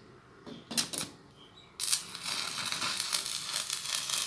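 Stick (arc) welding: after a couple of light knocks, the electrode arc strikes suddenly about two seconds in and settles into a steady crackling sizzle as a run of weld is laid on a steel shaft, half overlapping the previous bead.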